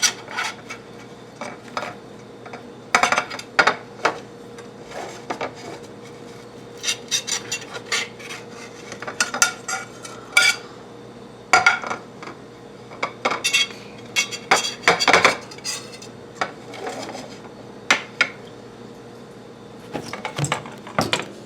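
A utensil scraping and clinking against a plate in scattered short bursts, as the cooked eggs on it are cut and turned.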